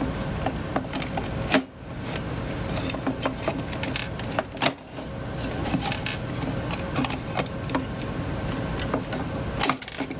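A small motor whirring steadily, stopping briefly twice, with clicks and rattles of parts and screws being handled.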